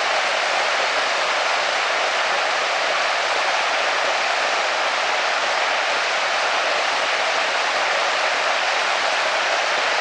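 Waterfall's steady rush of falling water: an even hiss that holds unchanged throughout.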